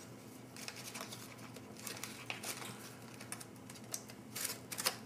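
Opened MRE cracker pouch crinkling and rustling in the hands as it is worked to get the crackers out, with scattered small crackles that come thicker near the end.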